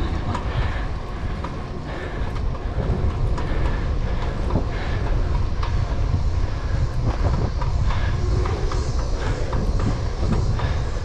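Riding noise from a 700c single-speed bicycle rolling along a concrete path: a steady low rumble of wind and tyres, with scattered clicks and rattles throughout.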